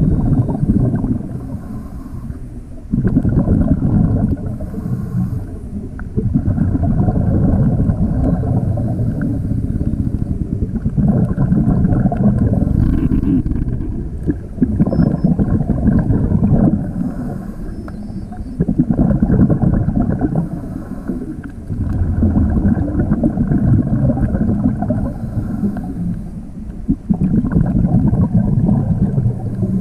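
Underwater, a scuba diver breathing through a regulator: loud bubbling rushes of exhaled air lasting two to three seconds, about every four seconds, with short quieter breaks between them for the in-breaths.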